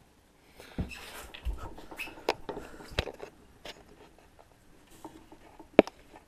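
Handling noise close to the microphone: a few seconds of rustling, scratching and small clicks starting about half a second in, then one sharp knock near the end.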